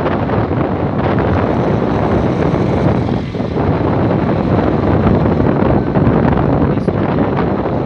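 Heavy wind rushing over a phone's microphone while riding a moving scooter: a loud, steady rush that dips briefly about three seconds in.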